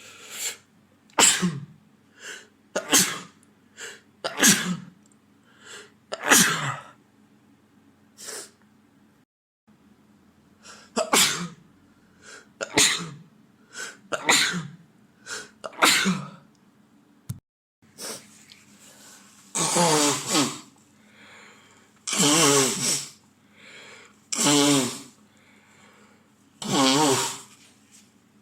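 A man with a head cold sneezing over and over: two runs of sharp sneezes, one every second and a half or so. Near the end come four longer, noisier blasts of about a second each.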